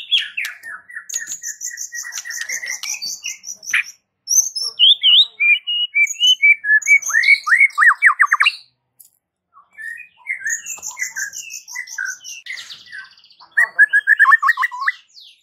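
White-rumped shama singing: a varied run of clear whistled phrases, glides and fast trilled notes. It breaks briefly about four seconds in and again for about a second near the middle.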